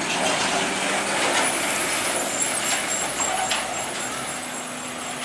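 Heavy truck passing by on a steep uphill grade, a steady mix of engine and tyre noise with some air hiss, fading slightly toward the end as it moves away.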